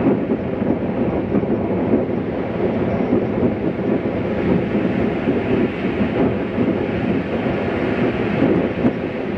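Wind buffeting the camcorder microphone over the steady wash of breaking surf, a continuous rushing rumble that swells and eases without pause.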